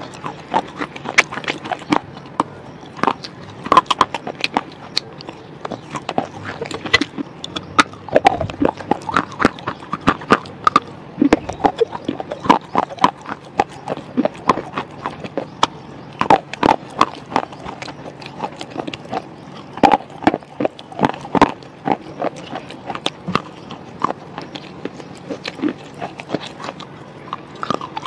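Wet red slate being crunched and chewed, a dense, irregular run of sharp crunches and clicks.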